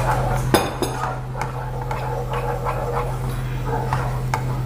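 A wooden spoon stirs thin orange syrup in a metal saucepan, knocking against the pan a few times, over a steady low hum.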